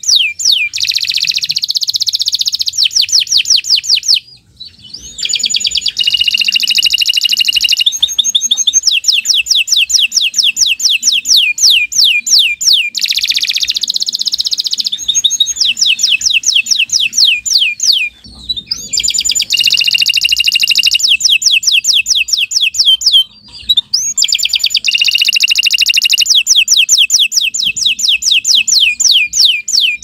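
Domestic canary singing a long, continuous song of very fast trills, each phrase a rapid run of repeated high down-sweeping notes alternating with buzzier rolls. The song breaks off briefly about four seconds in, about eighteen seconds in and about twenty-three seconds in.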